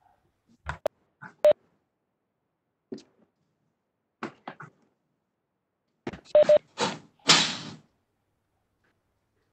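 Scattered short clicks and brief noises coming through a video call, each cut off abruptly, with a cluster of louder bursts near the end.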